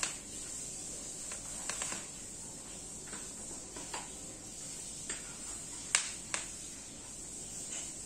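Scattered small clicks and taps of hands handling the plastic parts of a Solimo office chair during assembly, with two sharper clicks close together about six seconds in.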